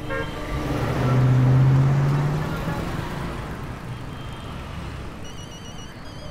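An SUV's engine pulling away: a low, steady engine note swells about a second in, then fades over the next few seconds. Near the end, a phone's electronic ringtone warbles in short repeated beeps.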